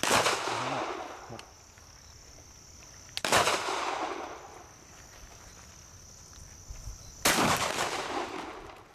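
Three shots from a semi-automatic 12-gauge shotgun firing slugs, about three to four seconds apart, each trailing off in an echo. The action cycles between shots, showing the gun feeds normally with the extra round loaded.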